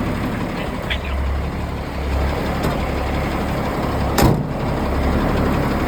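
M35A2 deuce-and-a-half's turbocharged multifuel diesel engine idling, straight-piped with no muffler, with a single sharp clunk about four seconds in.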